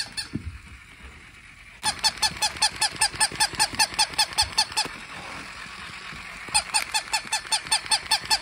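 Battery-operated toy puppy giving a fast, mechanical run of honk-like yaps, about seven a second, in two bursts about a second and a half apart.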